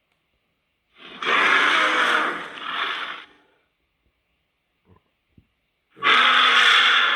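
Megoliah monster vocal sound effect: two long, breathy blasts, each about two seconds long and fading in a second surge, about five seconds apart.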